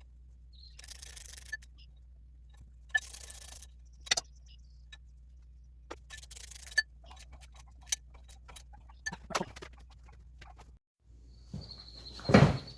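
Hand ratchet clicking in short strokes as the flywheel bolts are run in, with scattered metallic clinks of tools and bolts. There is one loud metal clank near the end.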